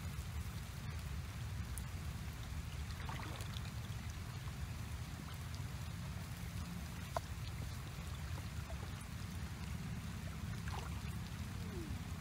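Steady noise of running water over a constant low rumble, with a few faint ticks and one sharp click about seven seconds in.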